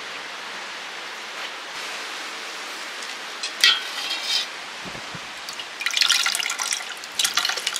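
Soup ladled up and poured back into a large stainless steel pot, splashing and dripping from about six seconds in. A brief clink of the metal ladle comes about three and a half seconds in.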